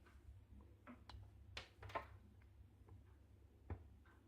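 Near silence with a low steady hum, broken by a few faint clicks and taps from handling a braided micro USB cable with metal connectors.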